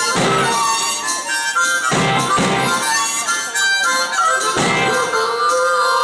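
Amplified blues harmonica played through a cupped hand against the vocal microphone, with bending, wavering notes, over a live band's electric guitar and drums.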